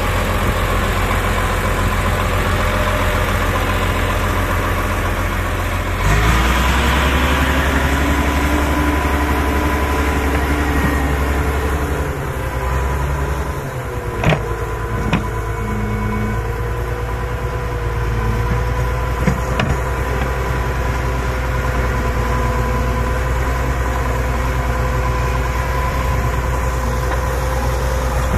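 Crawler bulldozer's diesel engine running, picking up throttle about six seconds in and then working steadily as the dozer moves and pushes earth with its blade. Two sharp metal clanks come about halfway through.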